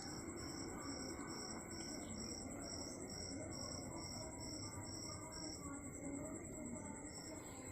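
Crickets chirping in regular pulses, about two a second, over a steady high insect trill, with faint low background noise.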